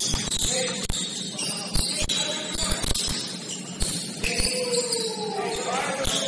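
Indoor basketball game: many short thumps of the ball and players' feet on the court, with higher gliding squeaks in between.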